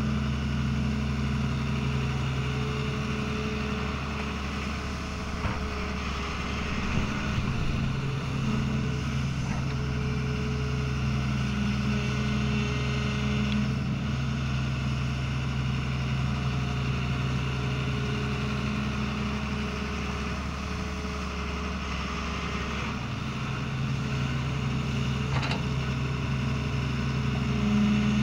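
Diesel engine of a Doosan 140W wheeled excavator running steadily as it digs, getting louder at intervals as the hydraulics take load. A few short knocks stand out over the engine.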